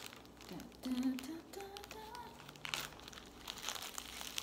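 Packaging crinkling in the hands as wrapped items from an unboxing are handled, in quick crackly bursts through the second half. Before that, a short voice sound, like a hum, rises in pitch in small steps.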